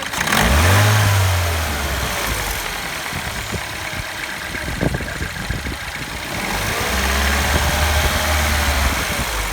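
Citroën DS3 1.6 THP turbocharged four-cylinder petrol engine running and revved up twice, once just after the start and again briefly later on, with the timing chain rattle of a failed chain tensioner.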